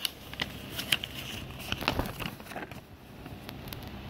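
Folded paper instruction leaflet being unfolded and handled: crisp crinkling and rustling, busiest in the first three seconds, over a faint steady hum.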